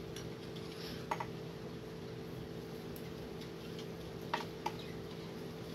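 Light clinks of kitchenware against a glass while milk is added to a falooda glass: one about a second in and two close together past four seconds, over a steady low hum.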